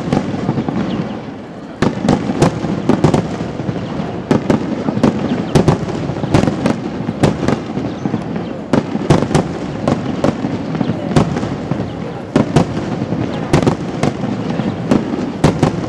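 Aerial fireworks display: shells bursting in rapid, irregular succession, sharp bangs over a continuous rumbling haze of overlapping bursts and echoes.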